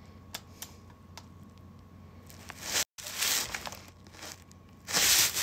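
Three light clicks, then bursts of rustling, crinkling noise, the loudest near the end.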